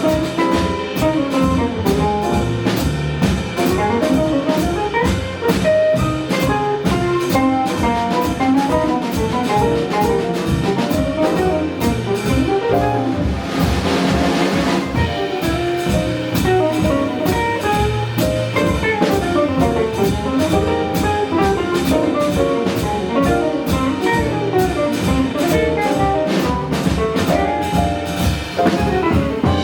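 A small jazz group playing live: a busy melodic line over piano, bass and a drum kit keeping steady time, with saxophone heard. A brief noisy swell comes about halfway through.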